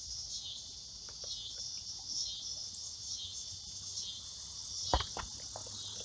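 Steady, high-pitched chorus of insects chirring, with a few short clicks about five seconds in.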